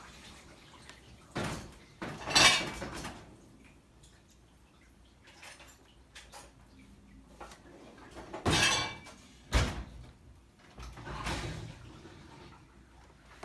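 Metal spoons and dishes clattering in several short bursts, from someone rummaging among dishes for a clean spoon.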